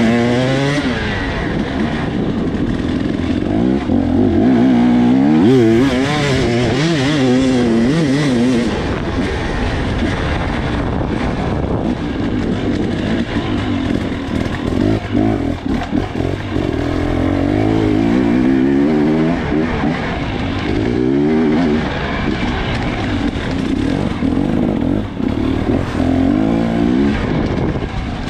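Dirt bike engine heard up close from the rider's helmet, revving up and down over and over, its pitch rising and falling quickly as the throttle is worked. A few short knocks come about halfway through.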